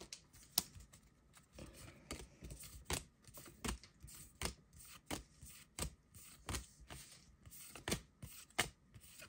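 Paper trading cards being flicked one at a time through a hand-held stack, each card sliding off with a light snap, about one every three-quarters of a second, with faint rustling of card stock in between.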